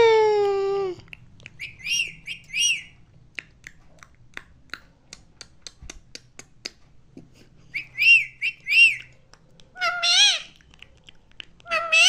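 Indian ringneck parakeet calling: a long falling call at the start, then two pairs of short arched chirps, one pair a few seconds in and another about two-thirds of the way through. Between them comes a string of sharp clicks, and near the end a louder wavering call.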